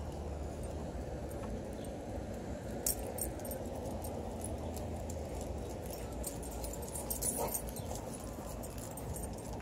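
Metal chain collar and leash hardware jingling and clinking lightly and irregularly as dogs walk on leash, over a steady low outdoor rumble.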